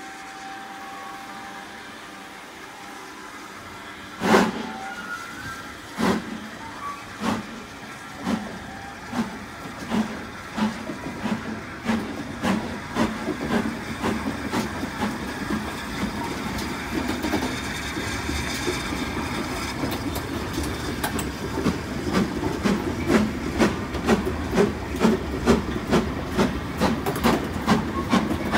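Two steam locomotives double-heading a train pulling away under a steady hiss of steam. A heavy exhaust chuff comes about four seconds in, then the chuffs come faster and faster. By the end they run into a rapid, uneven beat as the train gathers speed.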